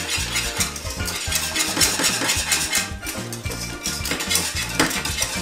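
Wire whisk stirring thick béchamel in a metal saucepan, with rapid, irregular clinks and scrapes of the wires against the pot.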